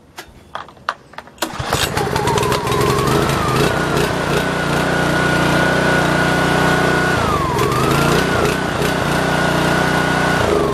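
Gas pressure washer's small engine electric-started about a second and a half in after a few clicks, spinning up and running steadily with a high whine. Its pitch dips briefly about seven seconds in, then the engine is shut off and winds down at the end.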